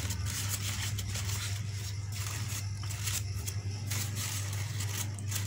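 Crepe paper rustling and crinkling in irregular short spells as fingers pull open the petals of a paper rose, over a steady low hum.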